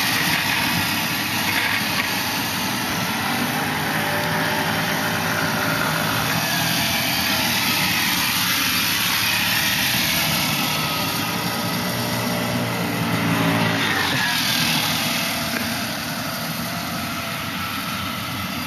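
Small moped scooter engine running as it rides around, its pitch rising and falling with the throttle, getting a little quieter in the last few seconds as it moves off.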